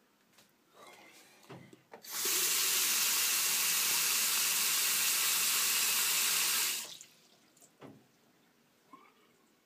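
Water rushing through an apartment building's plumbing riser for about five seconds, starting and stopping abruptly, with a few sharp knocks in the pipes before and after it.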